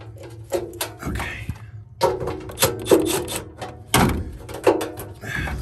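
Irregular clicks, knocks and rubbing as spade terminals are pulled off a furnace blower motor's weak run capacitor inside the sheet-metal cabinet.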